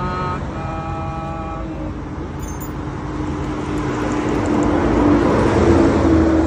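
Roadside traffic: a motor vehicle passes close by, its noise building to loudest about five to six seconds in over a steady low engine hum. A brief held multi-tone sound comes in the first second and a half.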